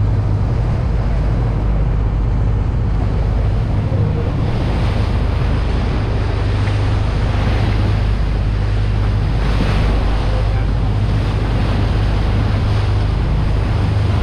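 A fishing boat's engine running with a steady low hum, mixed with water rushing past and wind blowing across the microphone.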